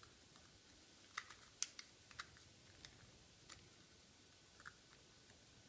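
Near silence with a few faint, irregular clicks from a knife blade working against a motocross shock absorber piston as the original piston ring band is cut off.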